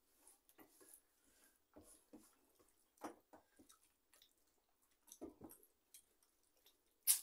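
Fingers mixing rice and dal on stainless steel plates: soft squishing with scattered light clicks of hand on metal, and one sharp click near the end.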